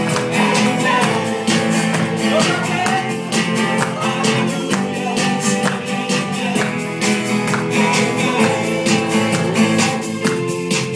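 Recorded music with a steady beat, played for a dance routine.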